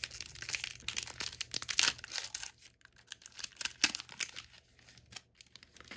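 Wrapper of a 2021 Score football card pack being torn open and crinkled: dense crackling for the first two and a half seconds, then sparser crackles and clicks as the pack is handled.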